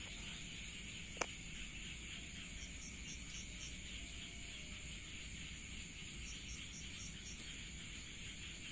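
Night insects chirping steadily in even, repeating pulses, with a single sharp click about a second in.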